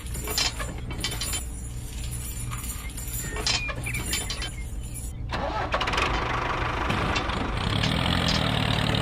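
Small engine of a miniature model vehicle running with a steady low hum, sharp clicks and knocks over it. About five seconds in it gets louder and fuller, and a pitched running note builds near the end.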